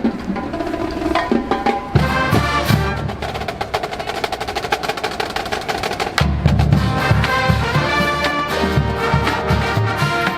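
College marching band playing: brass over a drumline, with rapid snare strokes through the middle and heavy bass drum hits coming back in about six seconds in.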